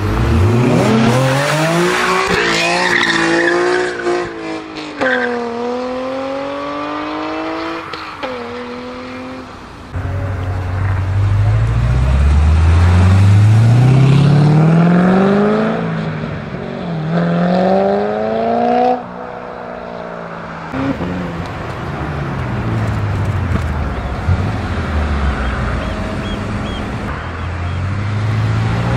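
High-performance sports car engines accelerating hard one after another, the pitch climbing steeply and dropping back at each gear shift. The sound changes abruptly about ten and nineteen seconds in, as one car gives way to the next.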